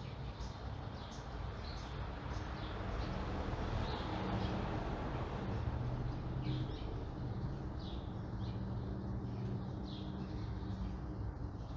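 Morning neighborhood ambience: small birds chirping in short repeated calls over a steady low rumble of traffic, which swells a few seconds in as a vehicle passes.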